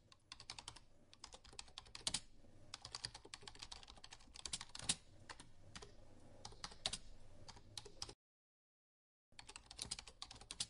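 Typing on a computer keyboard: faint, quick runs of keystroke clicks that break off completely for about a second near the end.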